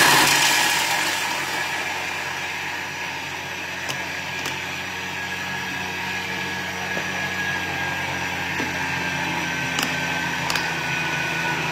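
Kitchen blender running on high, blitzing dates and coconut oil into a thick mixture. Its steady mechanical noise is loudest at the start and settles slightly within the first couple of seconds, then holds even.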